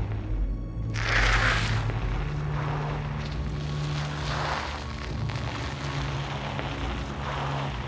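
Dark suspense soundtrack: low held drone notes with swelling whooshes over them, the loudest whoosh about a second in and two weaker ones later.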